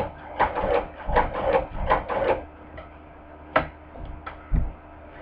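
Hand-crank cobbler sewing machine stitching: a quick run of mechanical stitch knocks over the first two and a half seconds, then one sharp click and a few fainter ones.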